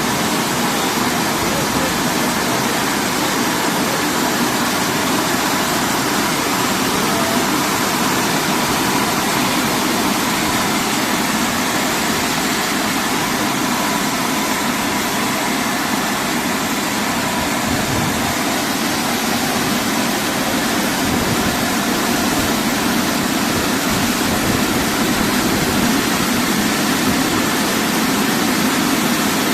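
Automatic car wash machine running: a loud, steady rushing noise that holds unchanged throughout.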